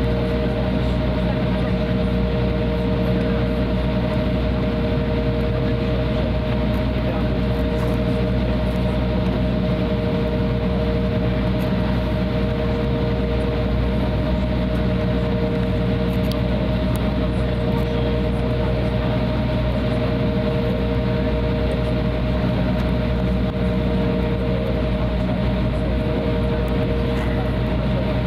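Cabin noise of an Embraer 175 taxiing: its GE CF34-8E turbofans running at low taxi thrust, a steady hum with two constant tones over a low rumble, heard from inside the passenger cabin.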